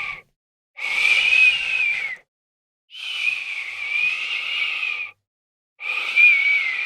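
Breathy whistling: three long, slightly wavering whistles with short pauses between them, each dipping in pitch at its end, after the tail of an earlier one.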